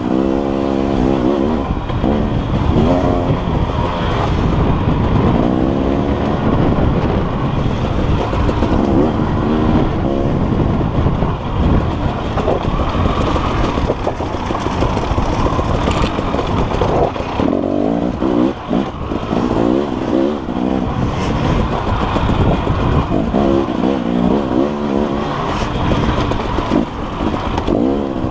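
KTM dirt bike engine heard from on board, its pitch rising and falling again and again as the throttle is worked along a twisting dirt trail.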